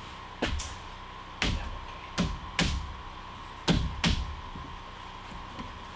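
About seven short, dull knocks over four seconds as a hand strikes and pushes on freshly built 2x4 wood stud wall framing, over a faint steady high hum.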